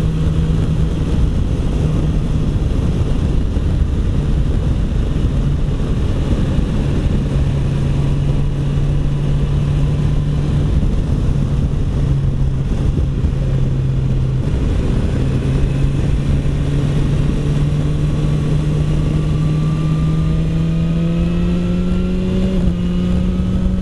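BMW S1000XR's inline-four engine pulling at steady revs, its note dipping slightly midway, then rising steadily over the last few seconds as the bike accelerates. Wind rushes over the helmet-mounted camera throughout.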